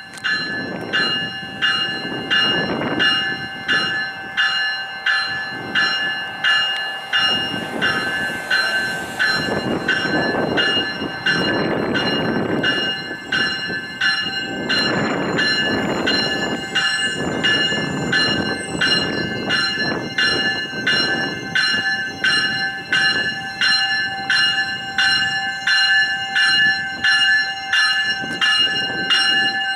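A GO Transit commuter train's warning bell ringing steadily, a little over one strike a second, over the low rumble of the train pulling out of the station.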